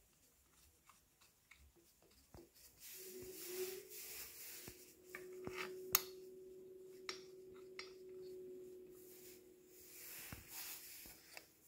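Small clicks and rubbing of a metal bolt being handled and fitted into an aluminium intake manifold, with one sharper click about six seconds in. A steady hum rises in pitch and settles about three seconds in, then holds.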